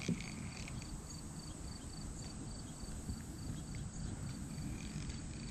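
Quiet creekside ambience: a low rumble with an insect chirping steadily, about three chirps a second, and a few light clicks near the start.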